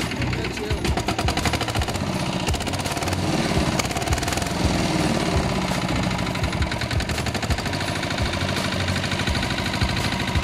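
IMT 509 walking tractor's single-cylinder diesel engine running steadily, a rapid, even knock of firing strokes.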